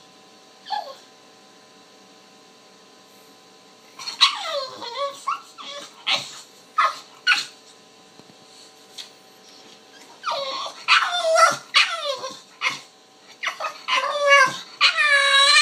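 English bulldog puppy whining and yelping: one brief cry, then after a pause a run of repeated high cries that each fall in pitch, with a short lull in the middle and longer drawn-out cries near the end.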